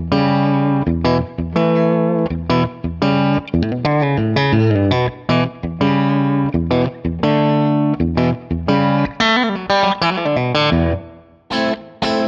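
Yamaha Pacifica Standard Plus electric guitar played clean through its Reflectone pickups in the middle-plus-bridge coil-split position: chords and short phrases with sharp picked attacks. Near the end the playing stops for a moment and starts again on the coil-split bridge pickup alone.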